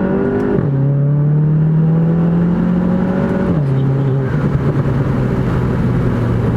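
Turbocharged 2.0-litre four-cylinder of a tuned Mk7 Volkswagen GTI pulling hard under acceleration. Its note climbs in pitch, drops abruptly at a quick DSG upshift about half a second in, climbs again, then drops at a second upshift about three and a half seconds in and runs on at a lower, steadier pitch.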